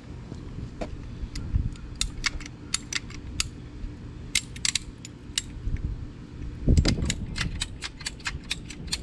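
Irregular sharp clicks and clinks from PVC cutters being handled on PVC pipe, over a steady low hum. A heavier low handling noise comes about seven seconds in.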